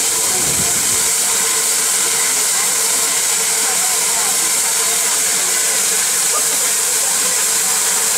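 Safety valves of rebuilt Bulleid Light Pacific 4-6-2 No. 34046 Braunton blowing off: a loud, steady hiss of escaping steam, the sign that the boiler is at full working pressure while the engine stands.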